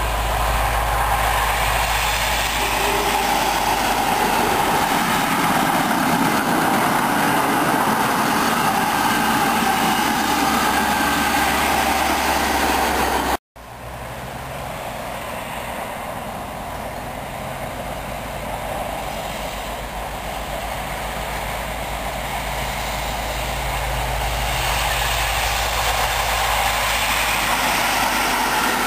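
InterCity 125 High Speed Train diesel power cars running as the trains approach, a steady engine rumble. The sound breaks off sharply about halfway through, then a second HST is heard growing louder near the end as its coaches pass close by.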